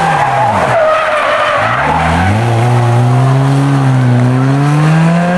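Rally car slowing with its engine note falling and tyres squealing, then about two seconds in the engine picks up and climbs steadily in pitch as the car accelerates hard.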